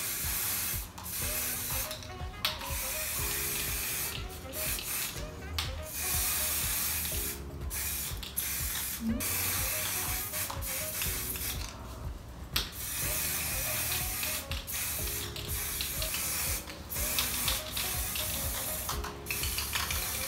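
Aerosol hair colour spray can hissing in repeated bursts of a second or two, with short breaks between, over soft background music.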